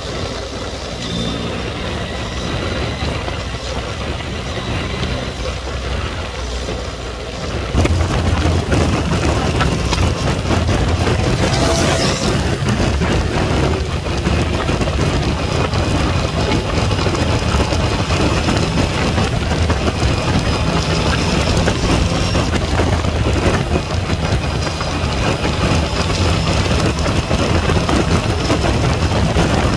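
Yamaha MT-09's three-cylinder engine running under way, with wind and road noise over the microphone. It gets louder about eight seconds in as the bike speeds up on the open road.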